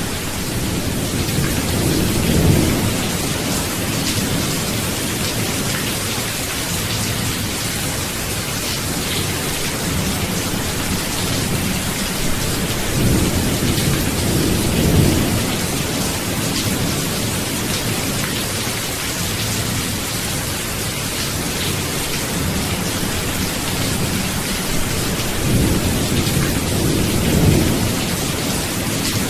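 Steady rain falling, with low thunder rumbling three times: about two seconds in, again around thirteen to fifteen seconds in, and near the end.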